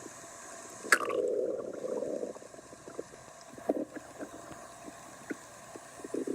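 Stomach growling and gurgling: a sharp click about a second in, then a gurgling rumble lasting over a second, scattered small pops with a short gurgle near four seconds, and another rumble starting near the end.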